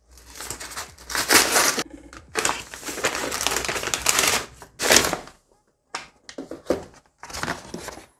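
Brown kraft-paper Amazon mailer being cut open with a knife and its paper crumpled and pulled apart as the wrapped item inside is drawn out. It comes as irregular crinkling, rustling bursts, the longest lasting about two seconds, with a short pause near the middle.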